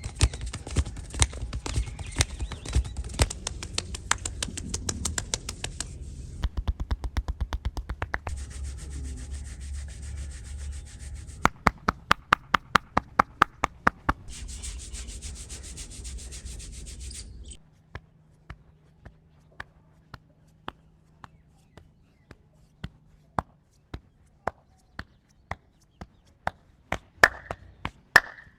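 Hands massaging a person's head and back: quick rhythmic tapping and slapping strikes over a rubbing sound. Near the middle there is a run of loud strikes at about four a second. The rubbing cuts in and out, and the last ten seconds hold only slower, lighter taps.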